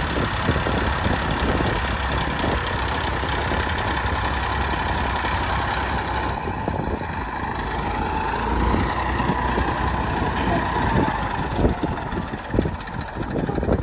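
Heavy diesel engine of a working excavator running steadily, with a faint whine that rises and falls in the middle and a few knocks near the end.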